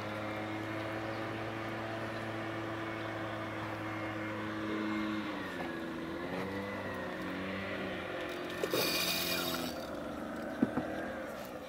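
An engine runs at a steady pitch, then its pitch dips and wavers for a few seconds, as when the throttle changes. About nine seconds in there is a short burst of high hiss, and a few faint clicks follow near the end.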